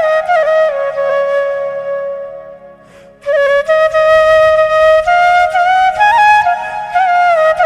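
Background music: a slow flute melody of held notes with small sliding ornaments. It fades away about two and a half seconds in and starts again just after three seconds.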